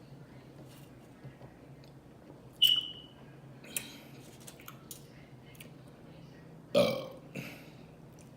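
A woman burps loudly once, about two-thirds of the way in, with a smaller second burp just after. About a third of the way in there is a short, sharp clink.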